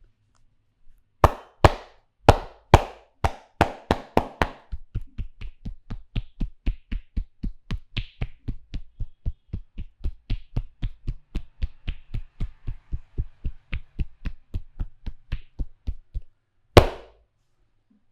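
Rhythmic percussive massage: a barber's hands slapping and chopping on a client, about three strikes a second. The opening strikes are the loudest and fullest; the run stops abruptly and one last loud strike follows near the end.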